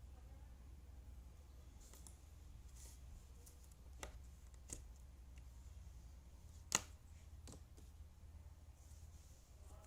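Jigsaw puzzle pieces being handled and pressed into place: a few short, sharp clicks, the loudest about two-thirds of the way in, over a faint steady low hum.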